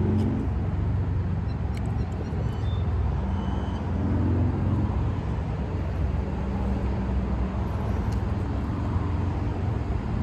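Steady low rumble of road traffic, with the hum of car engines.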